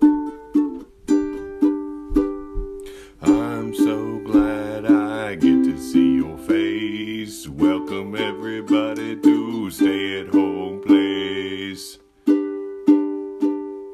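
Ukulele music with notes plucked at an even pace; from about three seconds in a wordless vocal melody joins over a fuller accompaniment, stops just before a brief break near the end, and the plucked ukulele carries on alone.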